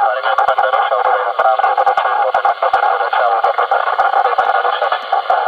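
Far-off station's voice coming through a President Lincoln CB radio's speaker, squeezed into a narrow band and muffled by static, with frequent sharp crackles. The signal is fading in and out over a long-distance skip path, so the speech is hard to make out.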